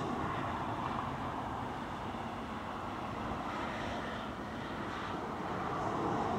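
Eurofighter Typhoon's twin EJ200 turbofans at approach power as the jet comes in to land: a steady jet rumble that grows a little louder near the end.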